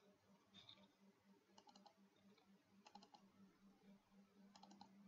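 Near silence, with a few very faint computer mouse clicks, some in quick double-click pairs, over a faint low hum.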